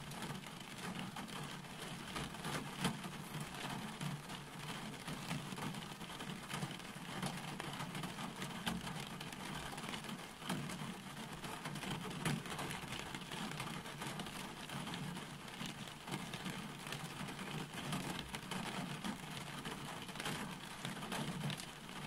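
Steady rain falling: an even hiss dotted with many small, sharp drop impacts.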